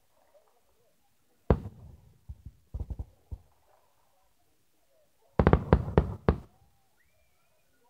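Aerial firework shells bursting: one sharp bang about a second and a half in and a few smaller pops after it, then a rapid cluster of bangs and crackles around six seconds in.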